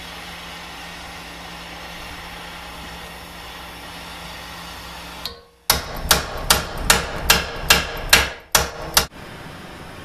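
Propane torch hissing steadily as it heats a quarter-inch steel plate; about five seconds in, a claw hammer strikes the hot steel about nine times, roughly three blows a second, working it while it is still hot enough to shape, and then the torch hiss carries on.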